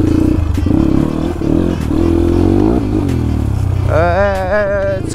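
Dirt bike engine running, its revs rising and falling about two to three seconds in. A voice calls out briefly near the end.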